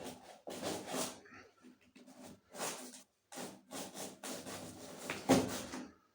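Packaging being handled: a series of short rubbing and sliding sounds, with a sharper knock about five seconds in.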